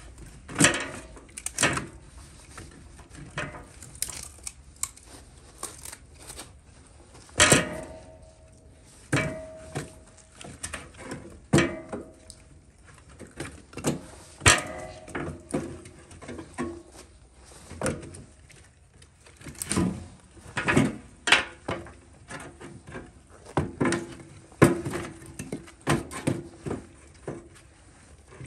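Pieces of split firewood being stacked into a steel barrel stove: irregular wooden knocks and clatters about once a second as the pieces hit each other and the barrel, a few with a short metallic ring.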